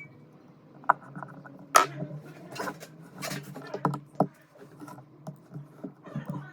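Irregular sharp clicks and taps of small repair tools and parts being handled on a phone, about ten in a few seconds, the loudest near the start.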